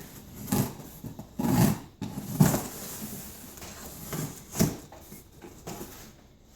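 A taped cardboard shipping box being opened by hand: several short rasping tears and scrapes of packing tape and cardboard.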